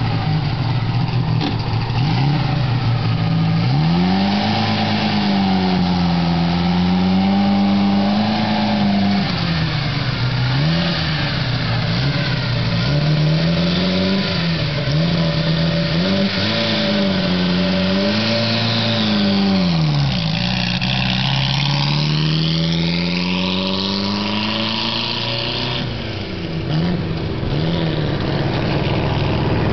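Supercharged 1930 Austin 7's small four-cylinder engine pulling away and running up through the gears: after a few seconds of a steady note, its pitch climbs and drops again and again with each change, then makes one long climb later on.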